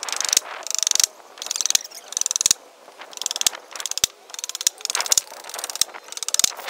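A hand tool working a wooden board in a run of short rasping strokes, each a burst of rapid fine clicks lasting a fraction of a second, with a couple of faint knocks between them.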